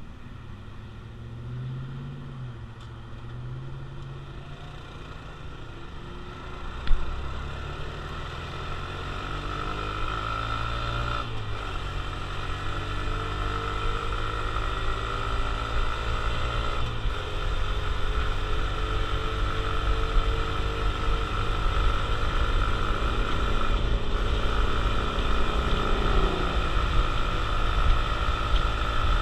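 Honda CT125 Hunter Cub's single-cylinder engine pulling away from low speed, with one sharp click about seven seconds in. It then accelerates through the gears, the engine note rising and dropping back at each shift about eleven and seventeen seconds in, and rising again until it eases off near the end. Wind rush on the microphone grows as the speed builds.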